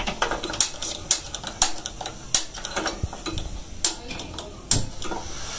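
Steel ladle stirring in a stainless steel cooking pot, clinking and scraping against the metal in irregular strokes.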